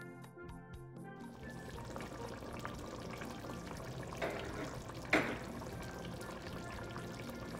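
Stewed fish gravy bubbling as it simmers and boils down in the pot, with a couple of louder pops about four and five seconds in.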